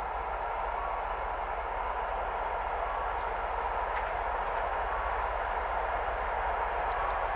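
TEP70 passenger diesel locomotive's 16-cylinder engine working as it approaches from a distance, growing slowly louder. Birds chirp throughout, and a faint short tone repeats about every two seconds.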